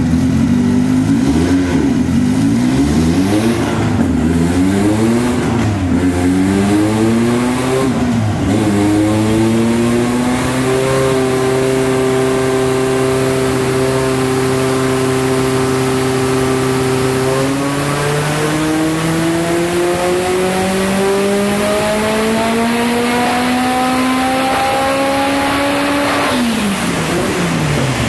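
Highly modified turbocharged Renault 5 GT Turbo engine on a dyno: blipped up and down several times, held at a steady pitch for several seconds, then pulled with pitch rising steadily until it is shut off and drops away near the end. The run is marked by misfires.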